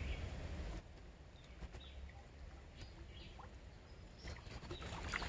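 Quiet riverside outdoor ambience: a low rumble like wind or handling noise on the microphone for the first second, then faint scattered short chirps and ticks.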